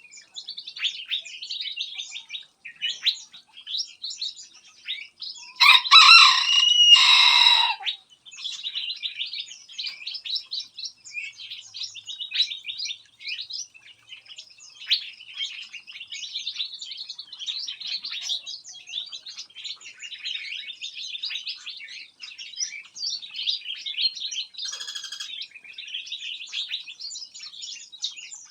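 Many small aviary birds chirping and twittering without pause. About six seconds in comes a loud, harsh two-part call from one bird close by, and a shorter loud call follows near the end.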